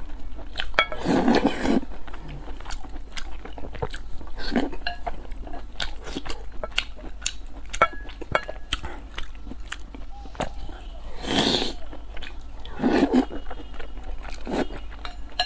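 Close-miked eating sounds: a person chewing saucy noodles and food, with many small wet mouth clicks and smacks, and a few louder slurps, one about a second in and two more near the end.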